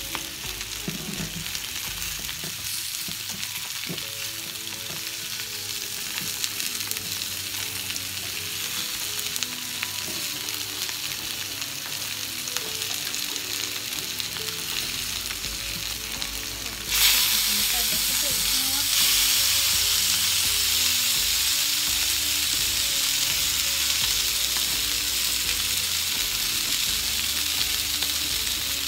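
Salmon fillets and boiled potato slices sizzling in olive oil in a grill pan, with the odd tap of a fork and spatula as the slices are turned. The sizzle jumps suddenly louder a little past halfway and stays that way.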